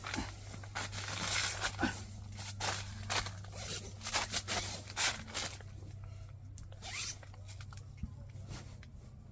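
A zipper being pulled in a series of short rasping strokes over the first five seconds or so, with fainter rustling after, over a steady low hum.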